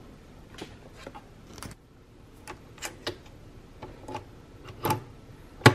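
Light clicks and clinks of coffee capsules and their cardboard sleeves being handled, then the lever of a Nespresso capsule machine lifted and snapped shut on the capsule with a sharp, loud click near the end.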